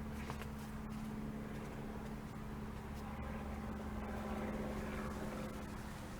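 A running engine humming steadily at a constant low pitch, dropping away near the end.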